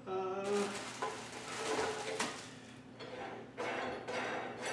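Metal clinking and rattling as the vise and fittings of a steel dry cut chop saw are handled on a metal table, with sharper clanks about two seconds in and near the end.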